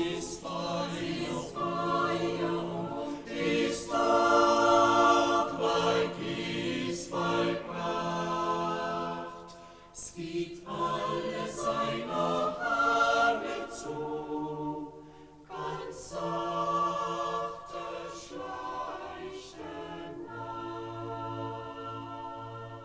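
A choir singing slow, sustained phrases in harmony, apparently unaccompanied, with long held notes and brief pauses between phrases. The singing fades out at the end.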